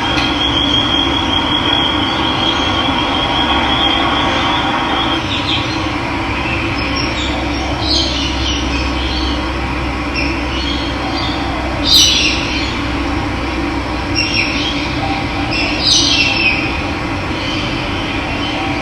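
Steady rush of running water, with birds calling over it: a thin high trill in the first few seconds, then short sharp calls about twelve, fourteen and sixteen seconds in.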